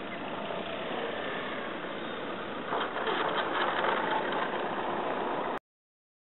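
Radio-controlled aerobatic model plane's engine running steadily as it comes in to land, louder and rougher about three seconds in as the plane is down on the grass. The sound cuts off abruptly near the end.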